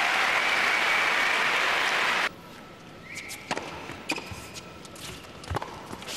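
Crowd applauding in an indoor tennis arena, cut off suddenly about two seconds in. Then, in a much quieter hall, come a few sharp knocks of a tennis ball being bounced and served, the loudest near the end.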